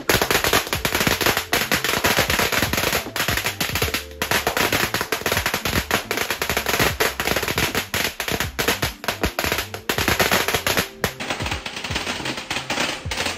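A long string of firecrackers going off, a dense, fast run of sharp bangs and crackles.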